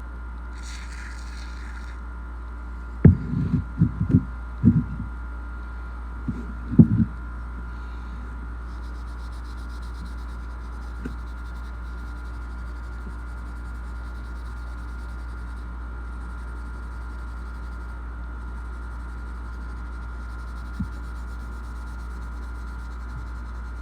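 Steady low electrical hum, with a cluster of six or seven sharp knocks about three to seven seconds in, as of metal gun parts being handled and set down on a bench.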